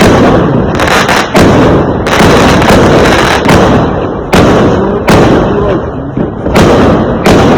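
Fireworks going off: about ten loud bangs, roughly one a second, over a dense, continuous crackle and rumble.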